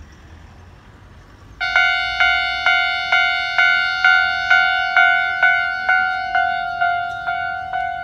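Japanese railway level-crossing warning bell starting suddenly about a second and a half in: an electronic ding repeating a little over twice a second, each strike dying away, sounding as the crossing closes for an approaching train.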